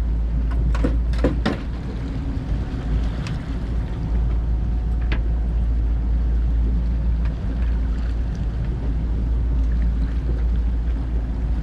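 Fishing boat's motor running steadily at trolling speed, a constant low rumble, with a few sharp knocks in the first second and a half.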